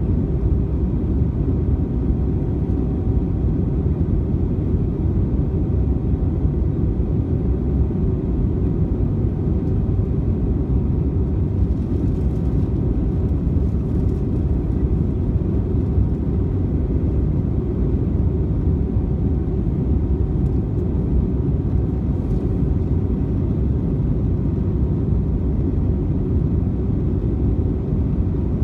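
Steady low rumble of engine and airflow noise inside an Airbus A320 airliner cabin in flight, heard at a window seat over the wing, with a faint steady hum on top.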